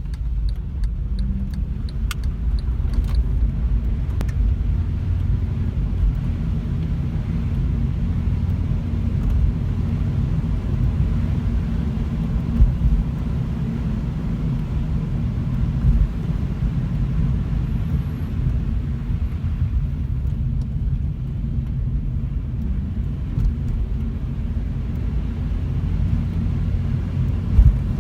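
Steady tyre and road rumble inside a Honda Civic sedan on the move, with a few short knocks as it goes over road joints and bumps, one of them sharp near the end. The knocking over joints is the suspension fault the car is being recorded for.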